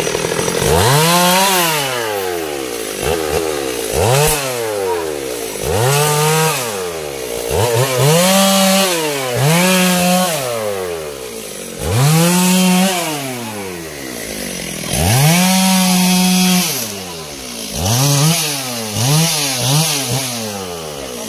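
Stihl two-stroke chainsaw revved up and down again and again, its pitch climbing to full speed, holding briefly, then dropping back to idle every second or two.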